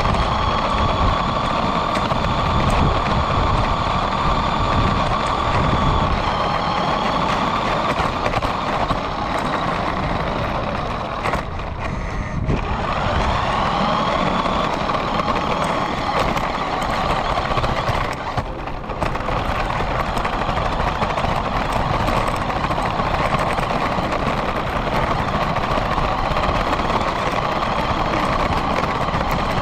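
Radio-controlled car driving, heard from a camera mounted on the car: a steady motor whine that glides up and down in pitch with speed, over a constant rumble of the tyres on the road. The whine drops away briefly twice, about twelve and eighteen seconds in, as the car eases off.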